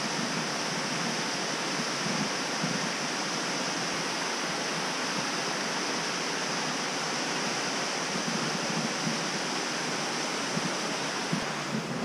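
Steady rush of a small waterfall pouring over rock into a pool.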